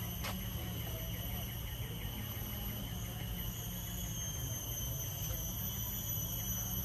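Insects calling steadily: a continuous high-pitched whine with a second, higher tone, and a quick run of repeated chirps in the first few seconds, over a low steady rumble.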